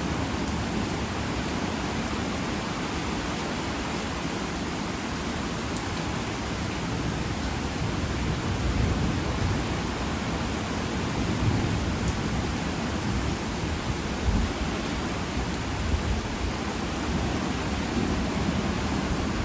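Heavy rain falling in a steady hiss, with low rumbles of thunder swelling and fading a few times.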